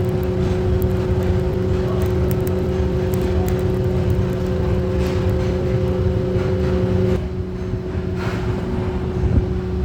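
A machine running steadily, with a low rumble and a steady hum that shifts a little about seven seconds in.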